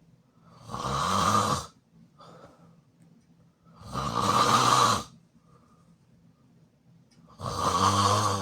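A person snoring loudly with the mouth open: three loud snores of about a second each, roughly three and a half seconds apart, with quiet breathing between.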